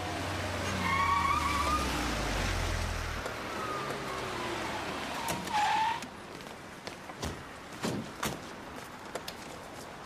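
A Fiat Uno car drives in and brakes to a stop, its tyres giving a short squeal about six seconds in. Then come scattered clicks and knocks as the car doors open.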